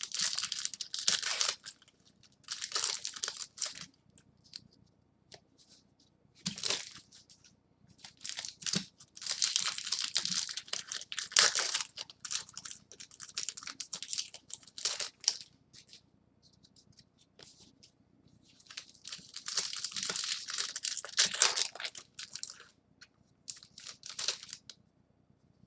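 Trading card pack wrappers being torn open and crinkled by hand, in repeated bouts of a second or a few seconds with short quiet gaps between them.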